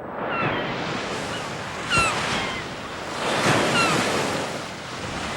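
Ocean surf, waves breaking in swells that rise and fall every second or two, with a few short, falling high cries over the wash.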